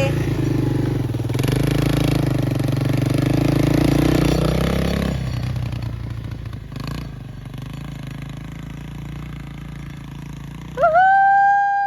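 1986 Yamaha YTM225 three-wheeler's single-cylinder four-stroke engine running under throttle, louder for the first five seconds and then fading away. Near the end a person lets out one long, loud whoop.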